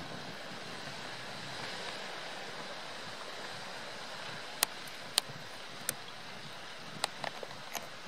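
Steady wind and surf noise on an open-air microphone. About halfway through come six sharp knocks in roughly three seconds.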